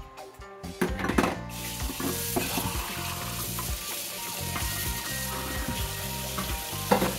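Kitchen faucet running into a stainless steel sink, the water splashing over a mug as it is rinsed; the rush of water starts about a second and a half in. A few sharp knocks of the mug against the sink come near the start and near the end.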